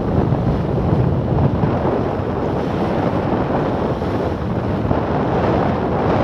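Wind buffeting the microphone, over the steady rush and splash of water along the bow of a small sailing yacht under way through chop.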